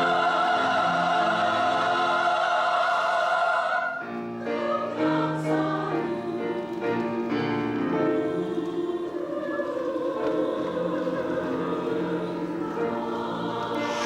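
Women's choir singing with piano accompaniment. A loud held chord ends about four seconds in. Piano notes carry a quieter few seconds, then the voices swell back in.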